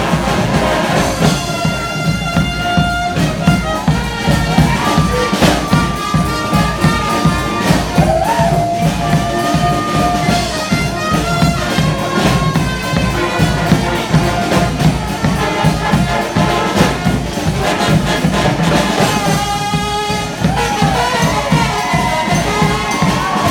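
Street brass band playing: trumpets and trombones carry held and sliding melody notes over a steady drum beat.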